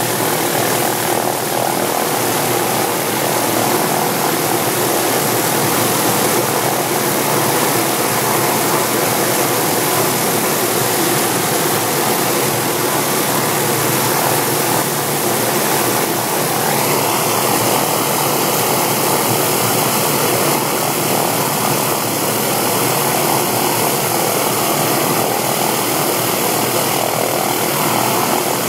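Hughes/MD 369E helicopter running on the ground: its Allison 250 turboshaft turbine and turning main rotor make a loud, steady rush. The tone shifts slightly a little past halfway through, while the loudness holds level.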